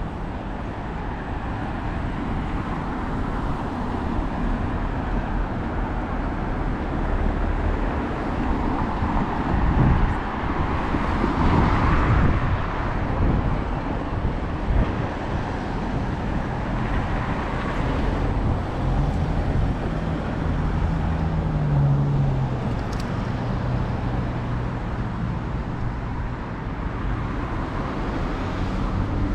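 Road traffic passing on a seafront road, with wind rumbling on the microphone. It swells as a vehicle goes by about ten to thirteen seconds in, and a low engine hum holds through the last third.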